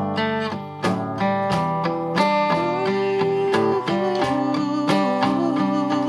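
An acoustic guitar strums chords in a steady rhythm, with a cajon tapping out the beat.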